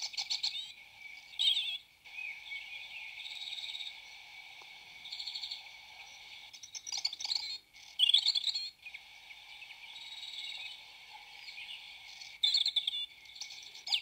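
European robin song played from a greeting card's sound chip through its small speaker: a series of high, cheerful phrases with short pauses between them, over a faint steady hiss.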